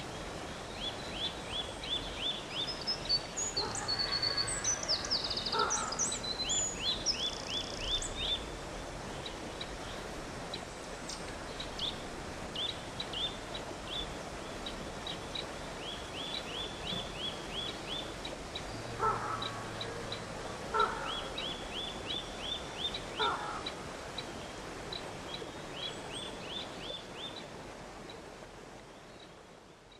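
Rushing woodland stream over rocks, with a small bird repeatedly singing short runs of quick high notes and a few lower, harsher calls from another bird. Everything fades out near the end.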